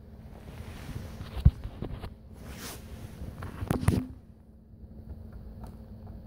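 Rustling and bumping of movement close to the microphone: a sharp low thump about a second and a half in, a few light clicks, and a louder scuffling rustle near four seconds.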